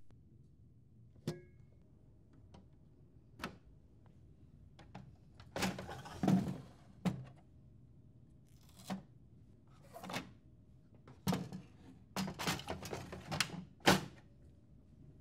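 Handling of a Lexmark optional paper tray unit: scattered plastic clicks and knocks, rustling as cardboard packing is handled in the drawer, then the tray drawer pushed into its housing with a sharp thunk near the end.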